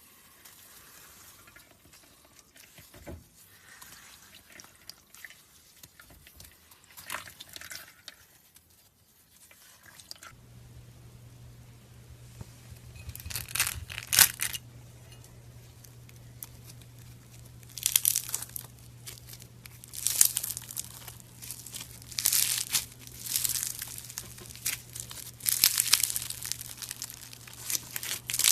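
Crunchy crackling and tearing of a soft material being pressed and pulled apart, in repeated bursts every two to three seconds. A steady low hum sits under the second half.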